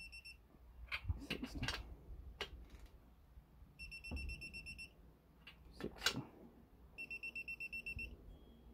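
Electronic torque wrench beeping in rapid pulsed bursts, about ten high beeps a second, three times: at the start, about four seconds in and about seven seconds in, as main cap bolts are pulled up to torque. Sharp metallic clicks and clinks of the wrench and socket on the bolts come between the bursts.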